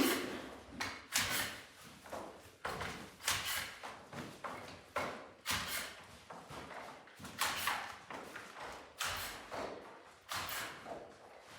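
A series of sharp knocks, about a dozen at roughly one a second, each fading quickly.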